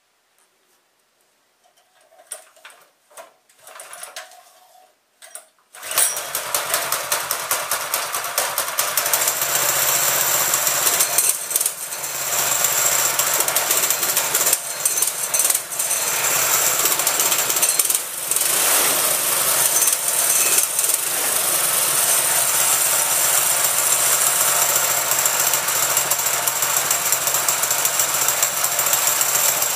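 A 7 hp mini bike engine cold-started by its pull cord: a few short pulls, then it catches about six seconds in and runs. It dips a few times at first, then settles into a steady run.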